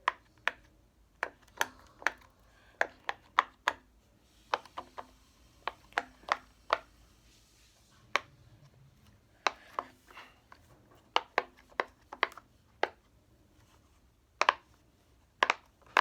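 Irregular sharp taps and clicks of small objects being handled close to the microphone, several a second, with short pauses between runs.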